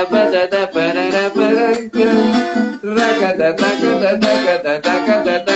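Acoustic guitar strummed in a bambuco rhythm, with a man singing over it.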